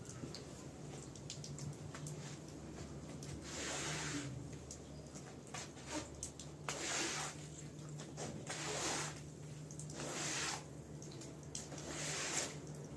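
Repeated wet strokes of a cleaning tool across a soaked, dirty rug, about one every one and a half to two seconds, over a steady low hum.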